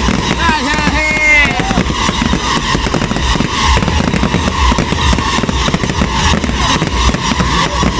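Fireworks going off continuously: dense crackling bangs with repeated low booms, over music.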